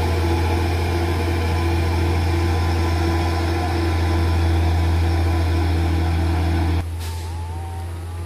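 Heavy truck's diesel engine pulling steadily up a steep climb, a deep even drone at constant pitch. About seven seconds in it drops abruptly to a quieter engine sound.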